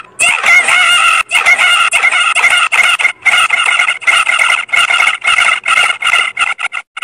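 Loud, heavily distorted, high-pitched cartoon audio with a wavering pitch, chopped into rapid stutters with brief gaps.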